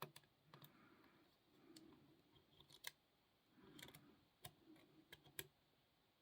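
Faint, irregular metallic clicks of a lock pick working the pins of a Ruger pin-tumbler padlock, picked from the back pin forward, with light handling noise.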